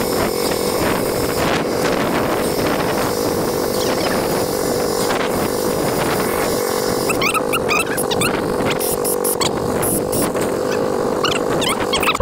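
ATV engine running steadily, with a rising and falling whine several times over the last few seconds.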